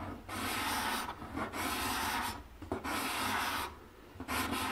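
Hand-held steel cabinet (card) scraper pushed across a wooden board in four scraping strokes of about a second each, with a short extra stroke near the end. Its freshly burnished burr lifts very fine shavings, the sign that the scraper is properly sharpened.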